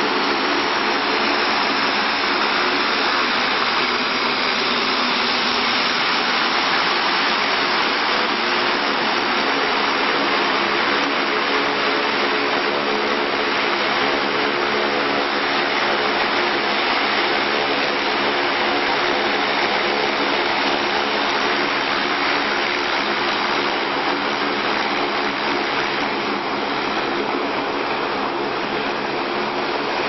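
Twin turboprop engines of a military transport plane running as it taxis: a loud, steady drone of several low tones over a rushing hiss.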